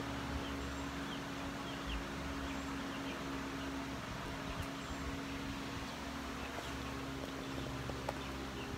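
Steady outdoor background noise with a constant low hum, and a few faint short chirps scattered through it.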